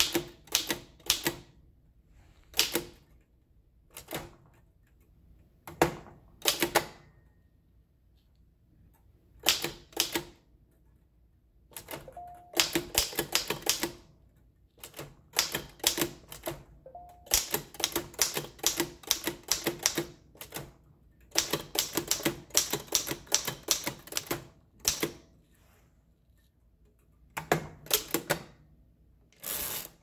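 Oliver No. 5 typewriter typing: its down-striking typebars hit the platen in single keystrokes and in quick runs of keystrokes, with short pauses between.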